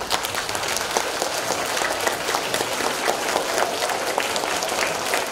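Audience applauding: many people clapping at once in a steady, dense patter, starting right as the choir's song ends.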